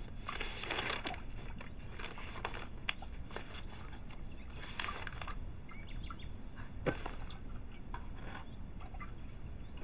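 Quiet background ambience with faint bird chirps, a couple of soft rustles near the start and about five seconds in, and a few light taps.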